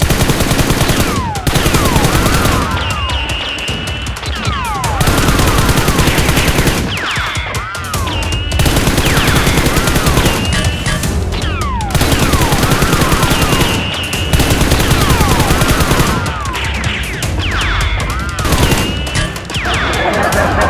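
Automatic gunfire sound effects in repeated rapid bursts, mixed with music.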